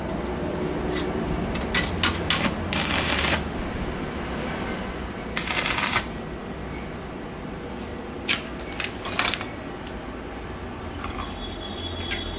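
Metalworking sounds over a steady low hum: several sharp knocks of tools on iron, and two short rasping bursts, each about half a second long, a few seconds apart.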